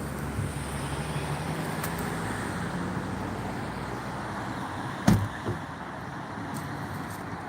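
Car engine running with road traffic noise, and a single sharp thump about five seconds in.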